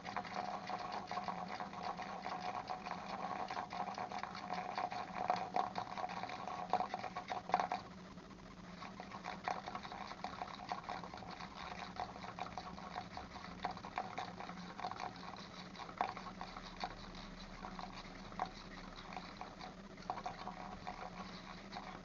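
Thread being wound by hand onto an ice-fishing rod: a steady rustle of fine rapid ticks, busier for the first eight seconds or so, over a low steady hum.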